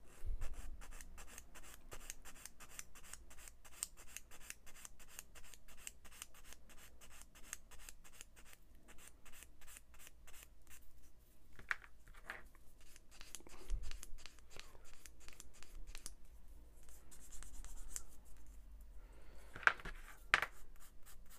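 Sanding stick rubbed rapidly back and forth over the edge of a small plastic model-kit part, about four to five rasping strokes a second with a few short pauses. Near the end come a couple of louder single scrapes.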